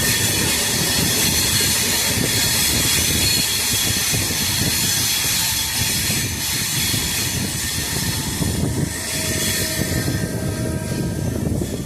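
LHB passenger coaches rolling through a curve, their wheels grinding against the rails in a loud, steady hiss with thin squealing tones held in it.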